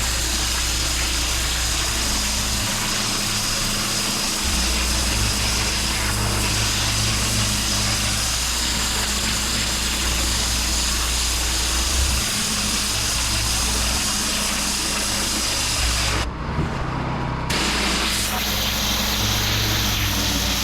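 Pressure washer running: a steady engine hum under the loud hiss of the high-pressure water jet on block paving. The spray hiss cuts out for about a second near the end while the engine keeps running, then resumes.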